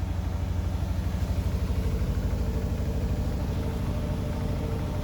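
Hoover 8+8 kg washer-dryer's drum trying to spin with a heavy imbalance from a load of only four towels: a steady low rumble that pulses fast and evenly. A faint motor whine comes in about halfway through.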